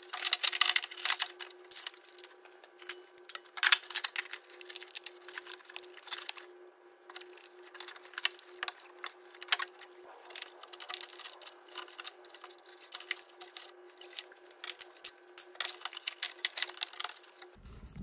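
Irregular light clicks and small rattles from hands working the NOx sensor's wiring, plastic clips and cable ties against the exhaust underbody, over a faint steady hum.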